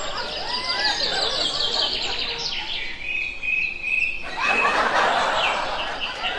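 Small birds chirping and calling in quick repeated high notes, with a run of steady high notes held in the middle. A rushing noise swells for about a second around two-thirds of the way through.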